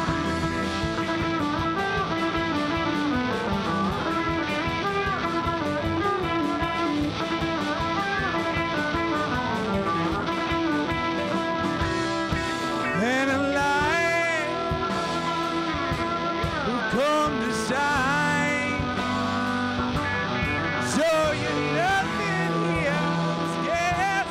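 Live rock band playing an instrumental passage: electric guitars over bass and drums with a steady beat. From about halfway, lead lines bend up and down in pitch.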